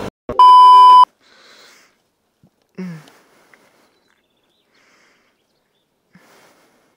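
Loud steady test-tone beep of a TV colour-bar test card, lasting under a second, used as an edit transition. After it come faint rustling and a short vocal sound, like a sniff, about three seconds in.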